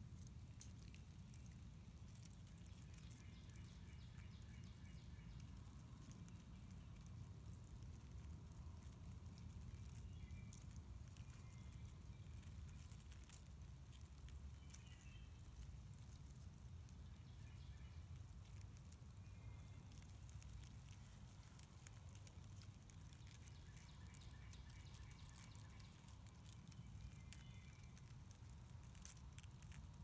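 Near silence: faint outdoor ambience with a low rumble, faint distant bird calls several times, and scattered light ticks.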